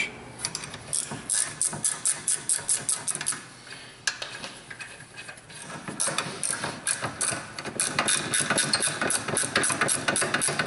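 12 mm ratcheting wrench clicking rapidly in quick back-and-forth strokes as it backs out a rear caliper bracket bolt, with a lull partway through.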